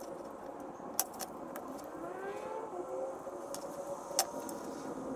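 A few light clicks and taps of a soldering iron and wires being handled on a wooden workbench, over a steady low background hum with a faint rising and falling tone near the middle.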